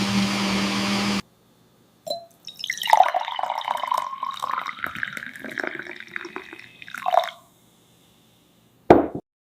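A steady motor hum cuts off suddenly about a second in. Then come a few seconds of liquid dripping and splashing with small clicks, and a short sharp sound near the end.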